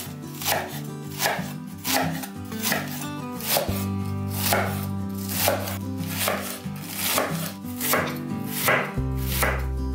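Chef's knife shredding a head of white cabbage on a wooden cutting board, one sharp cutting stroke about every three quarters of a second, with background music underneath.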